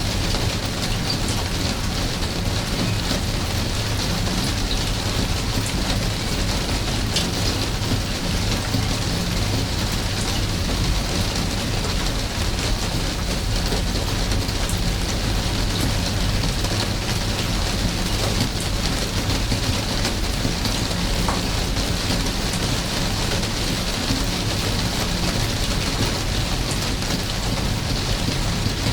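Steady rain falling, an even hiss with scattered individual drop ticks over a low rumble.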